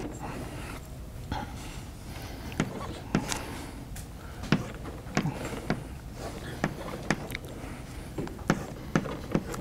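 Chalk tapping and scraping on a blackboard as lines are drawn: a series of short, sharp clicks at irregular intervals.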